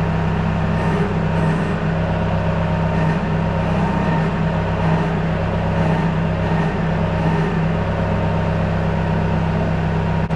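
Kubota tractor engine running at a steady speed, an even low hum.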